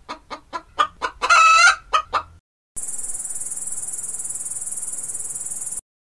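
Hens clucking in a quick run of short clucks, about four to five a second, with one drawn-out call about a second in. From about three seconds in, a grasshopper stridulates: a steady, high-pitched, finely pulsed buzz that stops about three seconds later.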